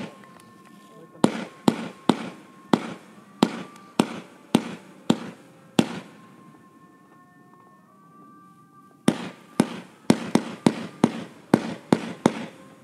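Hallmark 'Insidious' firework cake firing its tubes one after another, each a sharp shot. A steady run of about ten shots comes roughly two a second, then a pause of about three seconds, then a quicker run of about ten more.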